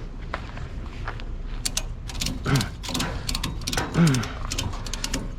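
Rapid metallic clicking and rattling of scrap being shifted and forced into place on a loaded truck, broken every second and a half or so by short falling grunts of effort.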